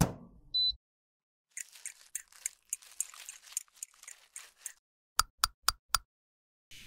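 A sharp knock at the start. Then a plastic stirrer scrapes and stirs loose eyeshadow powder in a small glass beaker, a gritty sound with small clicks. Near the end come four quick sharp taps, about four a second.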